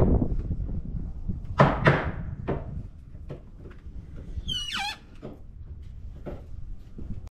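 A wooden 2x4 knocked and shifted into place across a Jeep's cargo area: a few sharp knocks in the first couple of seconds, then a short falling squeak about four and a half seconds in.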